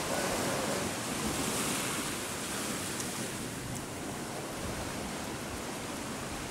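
Steady wash of sea waves, with wind buffeting the microphone.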